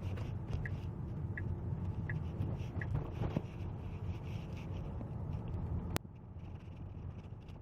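Tesla cabin with low road and tyre rumble while driving slowly. The turn-signal indicator ticks about every 0.7 s for the first three seconds. A sharp click comes about six seconds in, after which the rumble is quieter.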